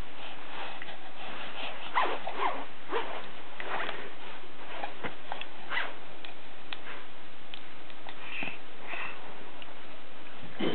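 A baby sniffing and snuffling in short breathy bursts, a few of them sliding down in pitch, over a steady background hiss.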